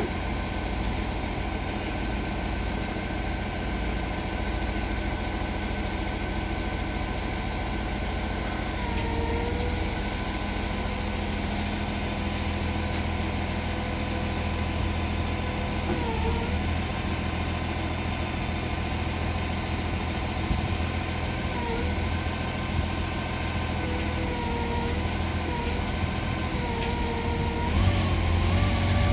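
Jungheinrich DFG670 diesel forklift engine running steadily at low revs. Its note dips briefly about five times as the mast hydraulics are worked, and it swells near the end.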